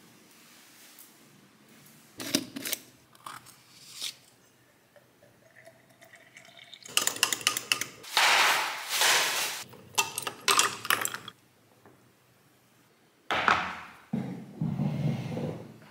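A metal spoon clinks against a tall drinking glass as a green powder drink is stirred, in quick runs of clinks. Near the end comes a sudden knock, followed by a low scraping rumble.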